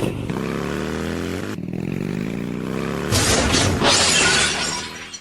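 A cartoon sound effect: a steady rushing noise with a low drone that slides in pitch, then a louder noisy burst about three seconds in that fades out near the end.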